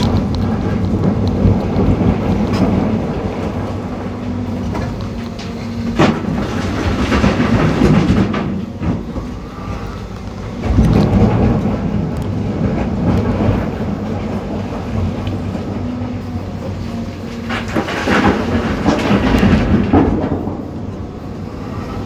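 John Deere 350G excavator's diesel engine and hydraulics working under load, heard from inside the cab, with rattling bursts of rip rap rock spilling from the bucket into a dump truck, a sharp knock about a quarter of the way in and louder rock clatter about halfway through and again near the end.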